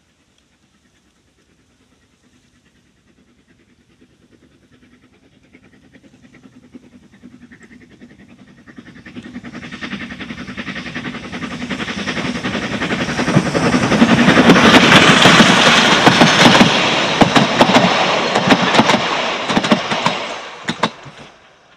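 Steam train on the 3 ft narrow-gauge Isle of Man Steam Railway approaching, growing steadily louder, then passing close with a dense rapid clatter of wheels over the rails, fading away quickly near the end.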